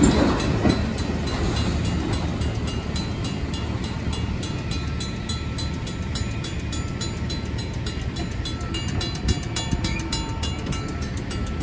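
The last freight car of a train rolls over the crossing and the rumble of its wheels fades as the train moves away. Meanwhile a Safetran mechanical crossing bell rings with rapid, regular strokes while the crossing stays activated.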